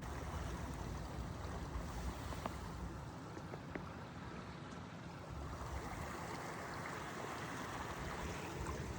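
Wind gusting on the microphone over a steady rush of river water, with a few faint clicks.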